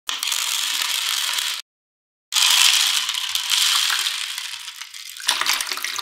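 Many small magnetic metal balls rattling and clattering against each other, in three spells separated by short gaps, each starting and stopping abruptly.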